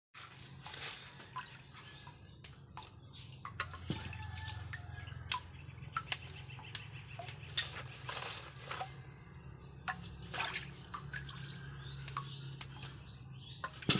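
Small splashes, drips and clicks of water in a metal basin as leafy stems are picked over and rinsed by hand, over a steady high insect trill.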